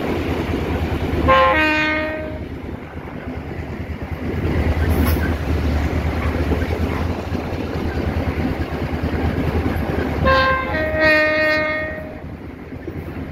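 EMD GL18B diesel locomotive sounding its multi-tone horn, heard from the moving locomotive: a short blast then a longer one, twice, about nine seconds apart. The diesel engine and wheels rumble steadily underneath.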